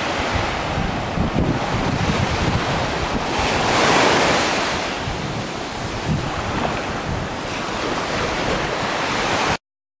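Surf washing on a beach, with wind buffeting the microphone in a low, uneven rumble. A wave swells up and breaks about four seconds in, and the sound cuts off abruptly just before the end.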